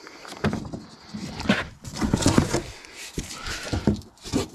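Corrugated cardboard packing being pulled, bent and torn by hand: an irregular run of scrapes, crackles and rips.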